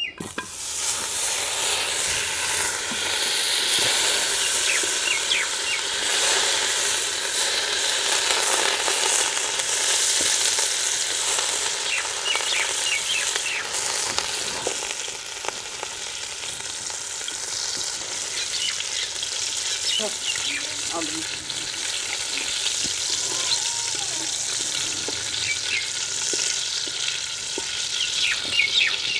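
Butter melting and sizzling in a hot aluminium wok, pushed around with a wooden spatula: a steady frying hiss with small crackles.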